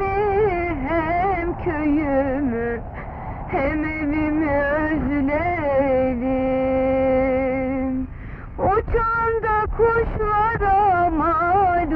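A woman singing solo, a slow melody with a constantly wavering, ornamented pitch. She holds one long steady note about six seconds in, breaks off briefly, then carries on.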